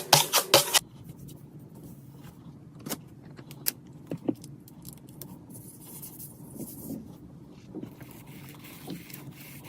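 Rapid scraping or rubbing strokes, about four or five a second, that stop under a second in. A few faint clicks and light handling noises follow.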